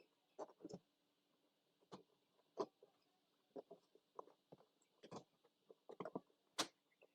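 Faint, irregular plastic clicks and knocks of car interior trim pieces being handled and pulled off their clips.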